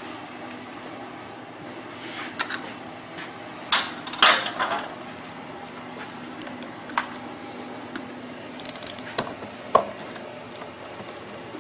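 Metal hand tools clinking and tapping against the generator while the valve cover bolts are loosened, with a short quick run of ratchet clicks about three-quarters of the way through.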